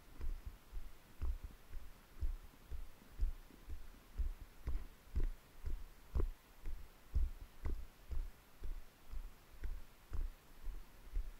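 Footsteps at a steady walking pace, about two a second, each a dull low thud.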